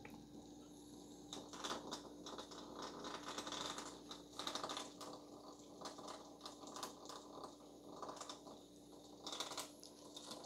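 Small vibrating robot ladybug toy clicking and skittering on a laminate floor as cats bat at it: faint, irregular light taps.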